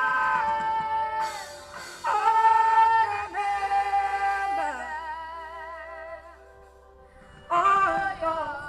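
Singing with music: long held, sustained sung notes in slow phrases, with a brief lull a little past the middle before a new phrase begins.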